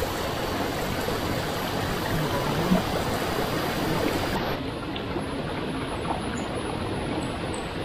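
Shallow rocky stream rushing steadily over stones, with one brief low thump a little under three seconds in.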